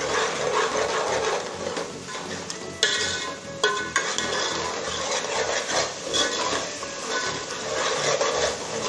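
A metal spoon stirring and scraping a thick curry masala around a metal pot, with irregular scraping and clinking against the pot's sides and bottom.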